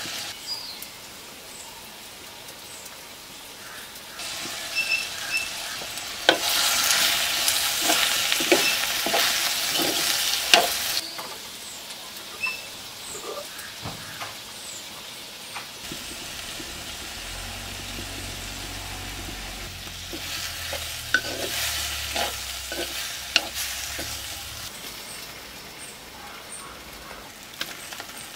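Sliced onions, tomatoes and green chillies frying in a clay pot, sizzling as they are stirred, with knocks and scrapes of the spoon on the pot. The sizzling and stirring swell twice, first for several seconds and again later on.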